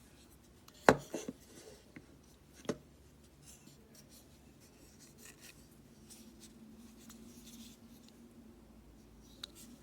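Handling noise: a sharp knock about a second in, followed by a few smaller clicks, another knock near three seconds, then faint rubbing and scraping.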